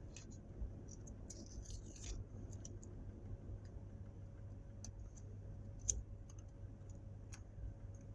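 Small plastic clicks, taps and rustling from a clear plastic toy ball being handled and fitted together, with a brief rustle about a second and a half in and a sharper click about six seconds in, over a steady low hum.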